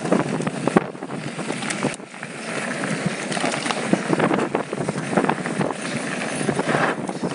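Mountain bike riding over a rocky gravel trail: tyres crunching and the bike rattling, with many quick clicks and knocks from the rough ground, under wind noise on the microphone.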